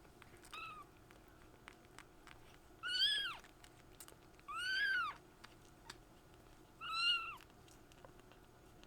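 Kitten mewing: a faint short mew, then three loud, high-pitched mews about two seconds apart, each rising and then falling in pitch.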